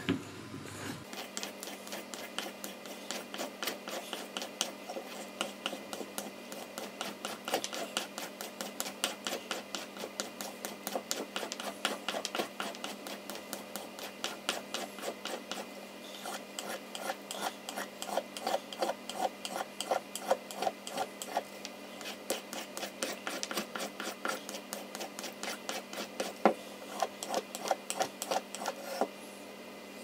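Victorinox pocketknife blade stroked back and forth along a strop charged with grey polishing paste, honing the edge. The strokes come in a quick, steady rhythm and stop about a second before the end.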